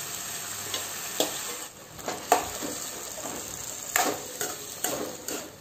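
Spatula stirring and scraping boiled ridge gourd pieces around an aluminium kadai, a handful of sharp scrapes and knocks against the pan over a steady sizzle of onion, garlic and chillies frying in oil.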